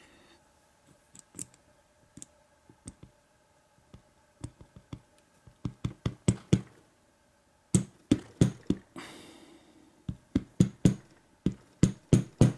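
Small parts of a disassembled American Lock 1100 padlock clicking and tapping as the brass plug and the lock body are handled and set down on a work mat: scattered sharp clicks, few at first and coming thick and fast in the second half, with a short scraping rustle about nine seconds in.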